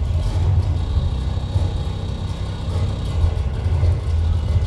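Live noise music from homemade electronic circuits and amplified objects: a dense, loud low rumbling drone with hiss above it, and a thin high tone held for about two seconds near the middle.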